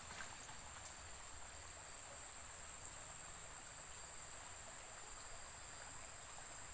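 Faint, steady insect chirring, a thin high continuous tone that holds unchanged, over a low background hiss.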